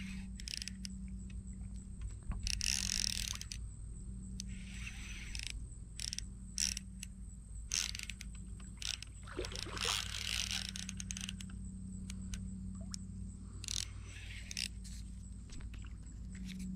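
Baitcasting reel during a fight with a big carp on light line: the drag ticks and buzzes in short spells as the fish pulls line, and the reel clicks as it is cranked in between.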